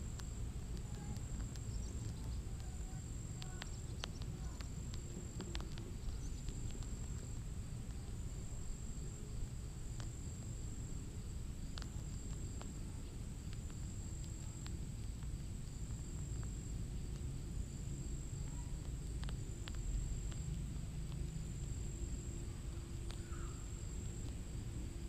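Outdoor ambience: a steady high-pitched insect trill that pulses every second or so, over a low rumble, with a few scattered faint clicks.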